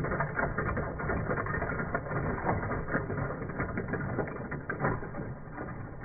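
Motorized Lego train running along plastic Lego track and ploughing through a row of Lego minifigures. The motor runs under a dense clatter of many small plastic figures being knocked over and tumbling onto the hard floor.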